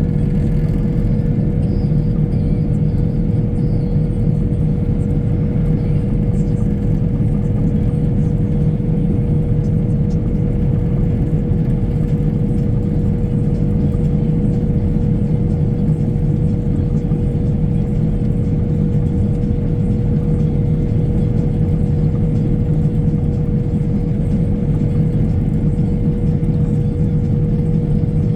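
Engine of a mowing machine running steadily under load, with a constant whine over a low rumble.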